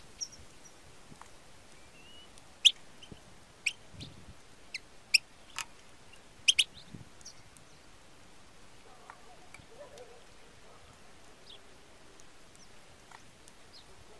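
European goldfinch in a decoy cage giving short, sharp, high call notes, scattered singly and in quick pairs through the first seven seconds or so, then only a few faint ones.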